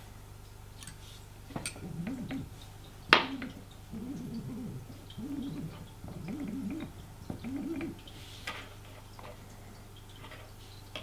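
A Sesto Senso stepper focus motor being turned by hand through a Feather Touch focuser's shaft, giving about five short hums whose pitch rises and falls with each back-and-forth turn. The hums are how the coupled motor is checked for resistance and smooth movement after the set screws are adjusted. A sharp metallic click comes about three seconds in.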